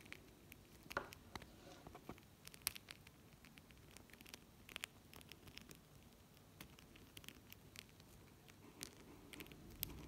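Faint, irregular clicks and taps of a parrotlet's beak working at the metal clasp of a bangle bracelet.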